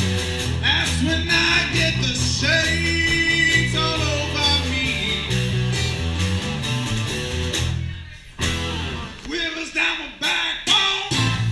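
Small live rock band playing: acoustic and electric guitars, electric bass and cajon, with a man singing. About eight seconds in the bass and beat drop out for a few seconds, then come back in.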